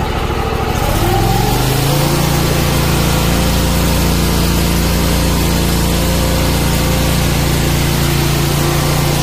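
Briggs & Stratton Vanguard 35 hp V-twin engine on a high-pressure drain-cleaning washer revving up from idle about a second in, then running steadily at high RPM under the pump's load. A steady hiss of the high-pressure water jet from the hose nozzle comes in with it.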